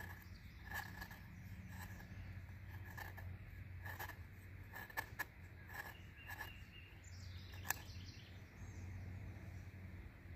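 Knife blade shaving curls off a fire-starter stick: a series of short, faint scrapes at an uneven pace.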